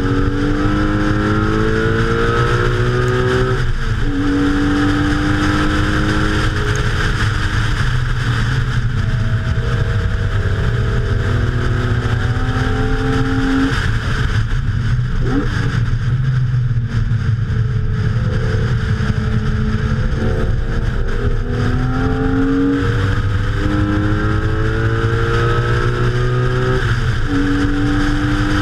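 Car engine under hard acceleration on a race track, its note climbing and then dropping sharply at each gear change several times, over steady wind and tyre noise.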